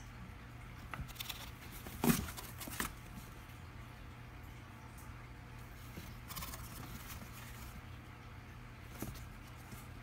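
Chinchilla rolling and scrabbling in a dust bath inside a cardboard box: faint scratchy rustles and taps, the loudest about two seconds in, another patch of rustling around six seconds in, and a tap near the end.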